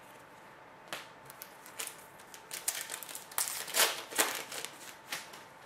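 Hockey card packs being handled: a foil wrapper crinkling and cards clicking and sliding, a string of sharp crackles that comes thickest and loudest a little past the middle.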